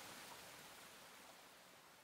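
Faint, even outdoor hiss, fading steadily down toward silence.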